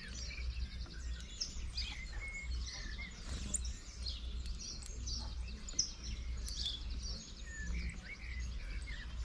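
Many small birds chirping and calling at once, short overlapping chirps and trills with no pause, over a steady low rumble.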